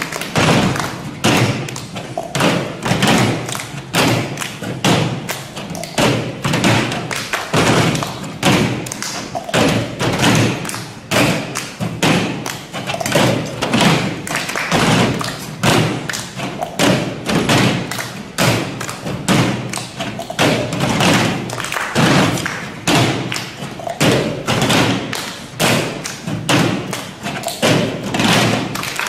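An ensemble of players performing cup percussion: cups thumped and tapped on a tabletop and struck with the hands, many players in a steady, busy rhythm.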